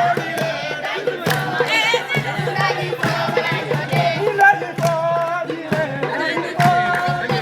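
A group of voices singing and chanting together, with sharp irregular beats and a steady low hum underneath.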